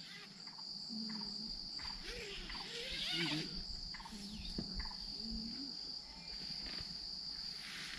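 Crickets trilling steadily in one high, unbroken tone, with a few faint lower sounds that rise and fall in pitch now and then.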